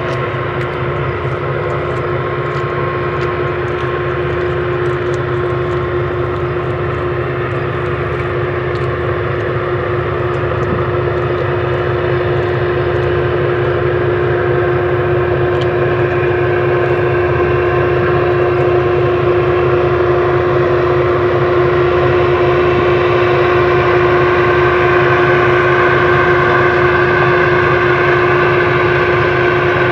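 Diesel freight locomotives running with a steady whine over a low engine rumble, slowly growing louder as the train approaches.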